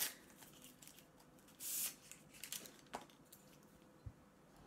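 Paper wrapper being pulled off a paper drinking straw: a short papery rustle about one and a half seconds in, with a few faint clicks and taps around it.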